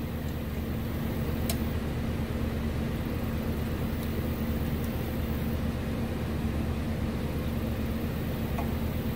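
Steady mechanical hum of a running machine, such as a shop fan or air-conditioning unit, with a low drone that does not change. A faint light click comes about a second and a half in and another near the end.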